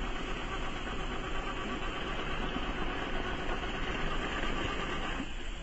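Traxxas TRX-4 RC crawler's electric motor and small drivetrain gears whirring steadily as it climbs a steep bank under load, cutting off suddenly about five seconds in.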